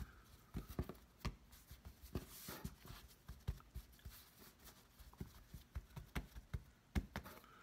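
Hands patting and pressing a small lump of biscuit dough flat on a floured countertop: soft, irregular pats and light thumps.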